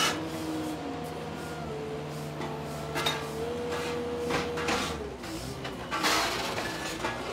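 Heavy machinery running: an engine hum and a steady whine that rises a little about three seconds in and falls away near five. Several sharp clanks sound as a Kubota loader's bucket tips debris into a garbage truck's hopper.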